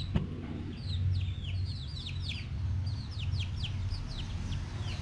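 Young chickens peeping: a quick run of short, high chirps that fall in pitch, about four a second, over a low steady hum.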